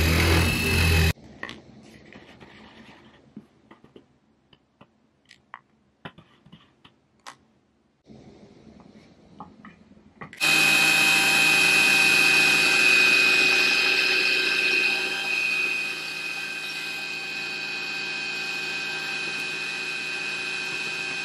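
CNC router spindle milling a steel plate with an endmill, a loud grinding cut with a steady high whine that cuts off suddenly about a second in. About nine seconds of quiet follow with scattered light clicks. The spindle then starts up again and runs with a constant high whine to the end, easing slightly in level about halfway through.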